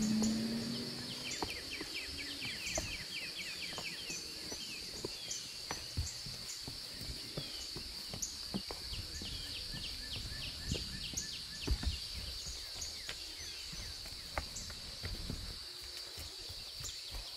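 Woodland insects droning in a steady high buzz, with repeated short bird chirps over it and scattered soft footsteps and thumps on the forest floor.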